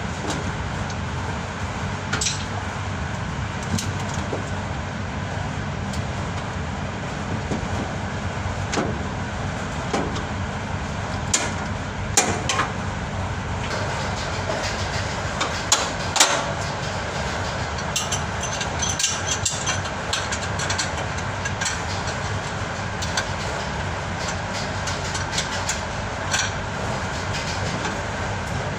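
Steady low rumble with scattered sharp clicks and light knocks, the strongest between about 11 and 16 seconds in, as wiring and connectors inside the machine's open panel are handled.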